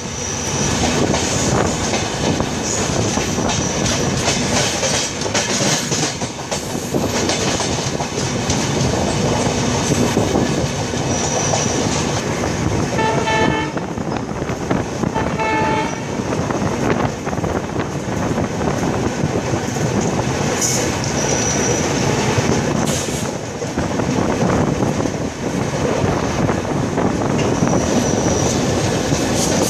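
Passenger express train running, heard from an open coach door: steady wheel-and-rail rumble and clatter with air rush. About halfway through, a train horn sounds twice, two short blasts a couple of seconds apart.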